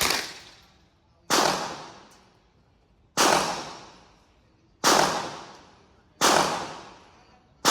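Gunshots at a shooting range: four single shots, one about every second and a half to two seconds, each echoing away over about a second. A fifth shot comes right at the end.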